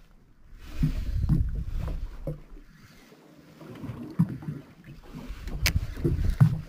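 Water lapping against a small boat's hull in two surges, with wind on the microphone and a sharp click a little after halfway.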